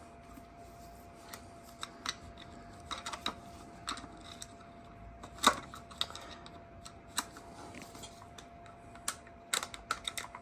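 Scattered small metallic clicks and taps of a flathead screwdriver prying at a stuck washer in a motorcycle engine, the loudest about five and a half seconds in, over a faint steady hum.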